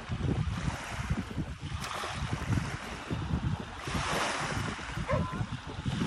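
Wind buffeting the microphone over small waves lapping at a pebbly lakeshore.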